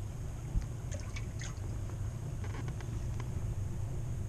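Water being poured and splashed into a fish bucket, in a few short splashes about a second in and again near the middle, over a steady low rumble.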